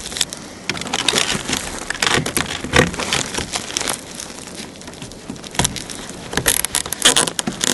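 Irregular crinkling and rustling from insulated flexible duct being handled and fitted, with scattered clicks and small knocks, and a louder stretch of rustling near the end.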